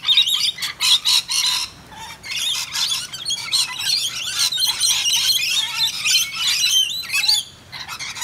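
A flock of rainbow lorikeets chattering and screeching, many shrill calls overlapping, easing off briefly about two seconds in and again near the end.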